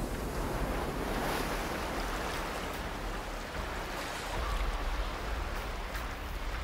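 Sea waves washing and surging over shore rocks, a steady rushing that swells and falls.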